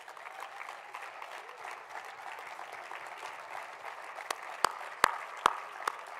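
Audience applauding steadily, with a few sharp knocks about four to six seconds in.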